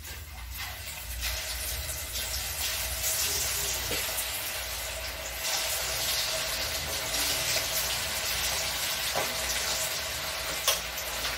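Batter-coated chicken pakoda pieces dropped into hot oil in a kadai, sizzling as they deep-fry. The hiss builds over the first few seconds as more pieces go in, then holds steady, with a couple of light clicks near the end.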